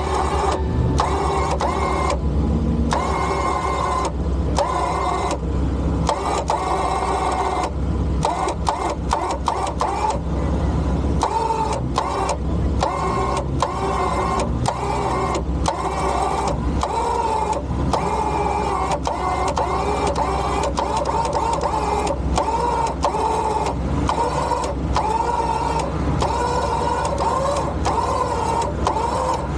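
Harbor Freight Badlands Apex 12,000 lb electric winch running under load, a steady motor whine that wavers in pitch as it slowly drags a stuck Jeep Wrangler out of deep mud.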